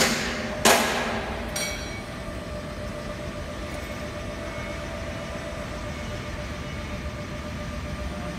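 Electric reach truck's hydraulic lift pump motor running with a steady whine as the mast extends and raises the forks. Two sudden loud knocks come in the first second.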